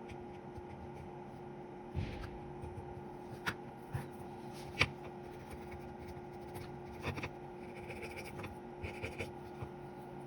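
Hands working on a small handheld radio's parts: a few light clicks and knocks, the sharpest about halfway, then soft scratchy rubbing near the end, over a steady electrical hum.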